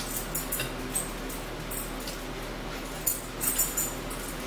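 A pet dog whimpering while begging for food at the table: a few short, high sounds, most of them about three seconds in. Light clinks of forks on plates are mixed in.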